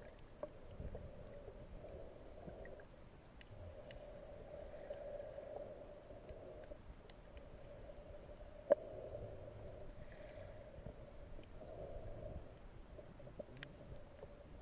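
Muffled underwater sound picked up by a camera held just below the surface while snorkeling: a dull, uneven wash with scattered faint clicks and one sharper click a little before the middle.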